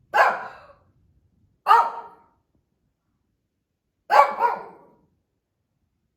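Shih Tzu barking: two single sharp barks about a second and a half apart, then a quick double bark about four seconds in.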